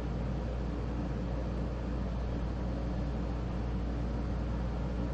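Pelonis 50-pint dehumidifier running: a steady low hum with an even rush of air from its fan.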